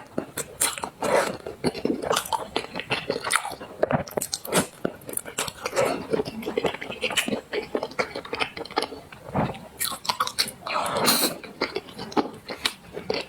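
Close-miked chewing and crunching of food, a dense run of small crisp clicks and mouth sounds, with a broader wetter burst about ten seconds in.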